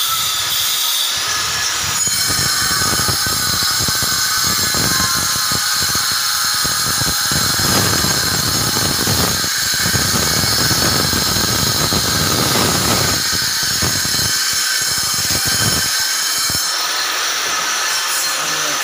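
Electric power tool running at high speed on marble: a loud, steady, high-pitched whine and squeal. A coarser grinding noise joins about two seconds in and drops away near the end, while the whine carries on.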